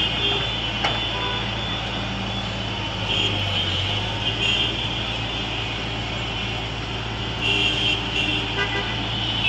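Excavator's diesel engine running steadily under work as the arm and bucket move, with a higher hiss coming up a few times.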